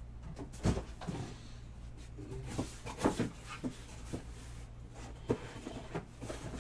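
Sealed cardboard boxes of trading cards being handled and set down on a table: a scattered series of light knocks and taps over a steady low hum.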